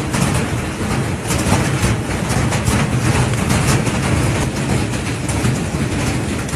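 Heavy hailstorm: a dense, steady roar of hailstones pelting down, with many sharp impacts.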